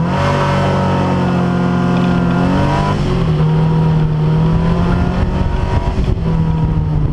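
Barchetta 595's engine accelerating hard from a standing start on a quarter-mile run, heard from the open cockpit. The engine pitch climbs, drops as it shifts up about three seconds in, climbs again and drops with another upshift near the end.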